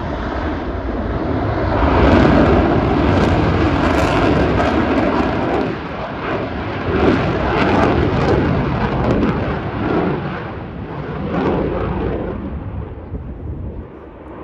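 Fighter jet flying a display overhead, its engine noise loud and rushing, loudest about two seconds in, swelling again midway and fading away near the end.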